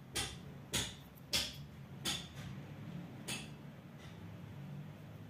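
Metal tweezers clicking against parts of an opened laptop while picking out cotton lint, about five light clicks in the first three and a half seconds, then only a faint low hum.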